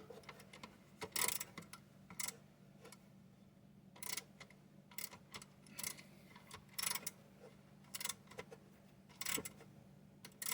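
A wrench tightening a last nut, with short metallic clicks about once a second.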